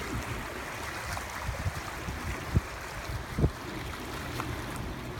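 Steady rush of wind and river water with a low rumble underneath, and two sharp knocks, one about two and a half seconds in and another about a second later.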